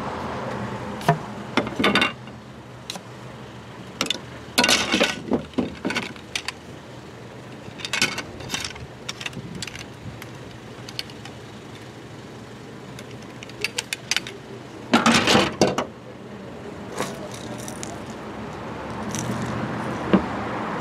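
A carbon surf rod and a spinning reel being handled and taken apart on a plastic truck bed liner: scattered clicks, knocks and rattles as the rod sections are pulled apart and the reel comes off the reel seat. A longer rattle comes about fifteen seconds in.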